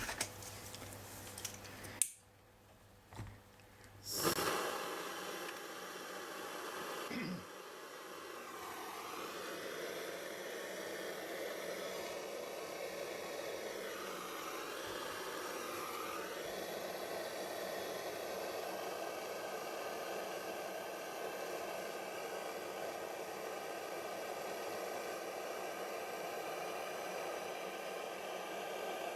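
A few clicks and knocks, then about four seconds in a gas blow lamp lights suddenly and burns with a steady hiss, heating a flexi pipe and tube joint for silver soldering.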